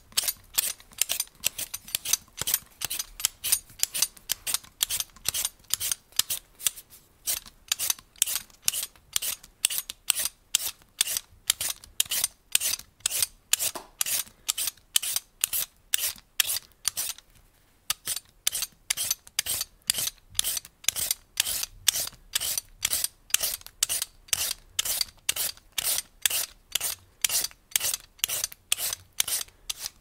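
A hand peeler scraping the skin off food in quick rasping strokes, about two to three a second, with a short pause a little past halfway.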